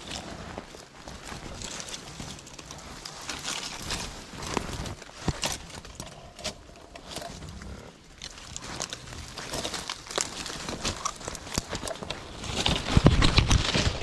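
Footsteps crunching through dry fallen leaves and brush, with twigs crackling underfoot in an irregular rhythm. They grow louder and busier near the end.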